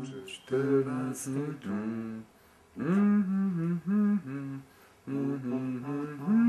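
A man humming a slow melody without words, in three phrases of long held notes.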